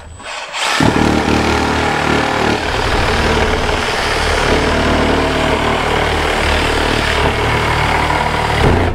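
Corded or cordless power tool running hard on demolition work for about eight seconds, starting abruptly about a second in and cutting off near the end.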